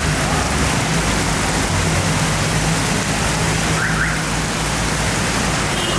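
Heavy rain falling as a steady loud hiss, with a low steady hum underneath and a brief high chirp about four seconds in.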